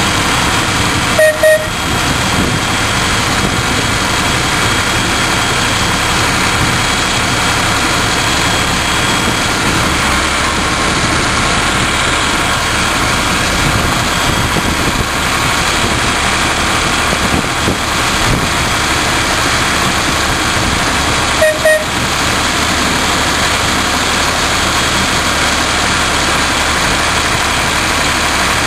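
Miniature railway locomotive's diesel engine running steadily as the train travels along the track. Two short paired toots of its horn sound, about a second in and again about twenty seconds later.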